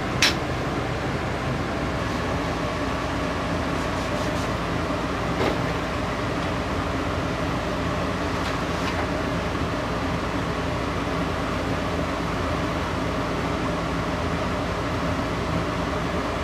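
A steady mechanical hum, with a few short sharp clicks. The sharpest click comes just after the start, and weaker ones come a few seconds later.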